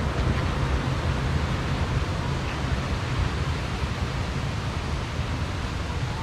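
Steady rush of wind buffeting the microphone, a rough, uneven low rumble under a broad hiss.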